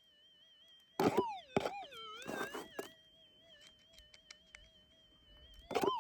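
Minelab SDC 2300 metal detector's steady, slightly warbling threshold hum, broken about a second in and again near the end by loud target signals whose pitch swoops up and then falls as a target passes the coil. Scraping and rattling sound along with the first signal.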